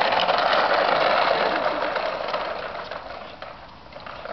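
Small trolley's hard castor wheels rolling and rattling over rough concrete, with its chain scraping along, as a Scottish terrier drags it. The rolling noise is steady at first and dies away about three seconds in.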